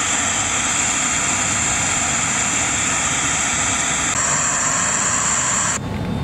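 Loud FM radio static from a small FM tuner module: a steady hiss of off-station noise that starts abruptly, thins in tone about four seconds in, and cuts off suddenly near the end.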